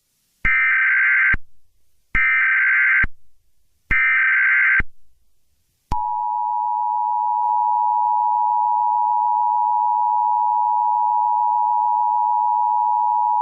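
Emergency Alert System alert tones: three short bursts of SAME digital header data about a second and a half apart, then about six seconds in the steady two-tone EAS attention signal starts and holds.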